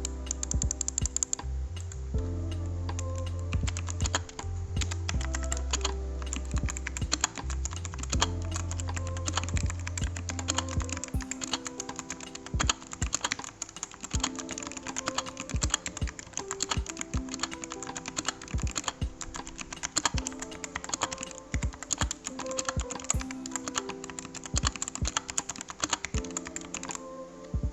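Typing on a Rexus Daxa M71 Classic mechanical keyboard: quick, irregular keystroke clicks, over background music whose heavy bass line drops out about a third of the way in.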